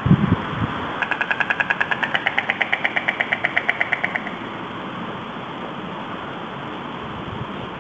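White stork bill-clattering on the nest: a rapid, even rattle of about nine clacks a second that starts about a second in and stops after about three seconds. Wind noise runs underneath, with a brief low buffet at the very start.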